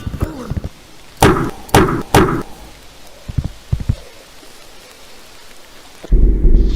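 Three sharp, heavy thuds about half a second apart, then a few fainter knocks. Near the end a loud low rumble starts suddenly.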